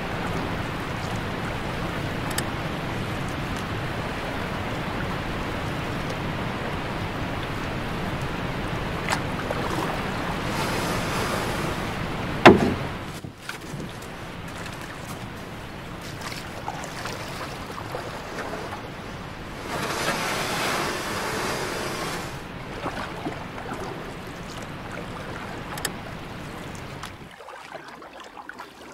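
Creek water rushing over rocks and down a small cascade as a steady hiss, a little quieter after a single sharp knock about twelve seconds in.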